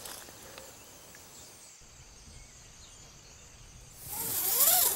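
Quiet outdoor woodland ambience. About four seconds in, a louder rushing hiss swells up, with a few brief chirps over it.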